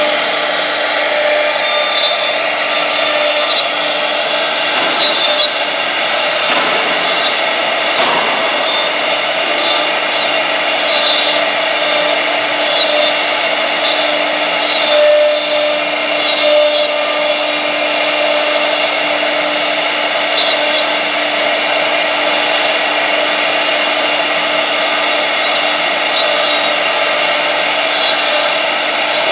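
CNC router spindle running steadily while its small carving bit cuts a relief pattern into a wooden panel: a continuous whirring whine over the noise of the cut, with a couple of brief swells in the middle.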